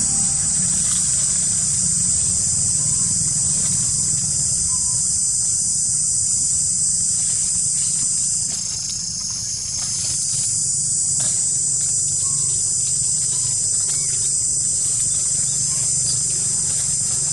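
A dense chorus of insects buzzing steadily at a high pitch, easing off briefly about halfway through, over a steady low hum.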